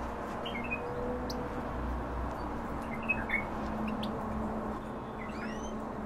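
Small cage finches chirping: a few short chirps, then several quick rising call notes near the end, over a steady low hum.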